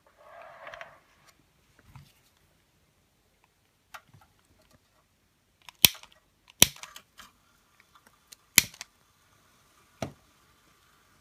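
A long-nosed utility lighter clicking as it is fired into the two burners under the toy steam engine's boilers: a short hiss at the start, then several sharp clicks, the loudest about six, seven and eight and a half seconds in. From about seven seconds a faint steady high tone sets in as a burner is alight.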